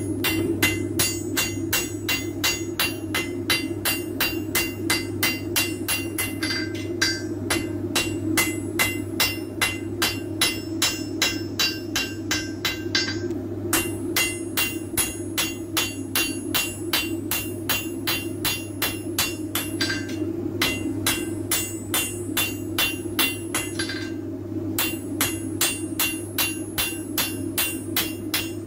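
Hand hammer forging a red-hot knife blade on a steel anvil: runs of quick, evenly spaced ringing blows, broken by short pauses every few seconds. A steady low hum runs underneath.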